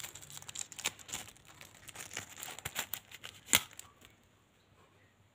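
Small shiny sticker packet being crinkled and torn open by hand: a run of crackles with one sharp snap about three and a half seconds in, stopping about four seconds in.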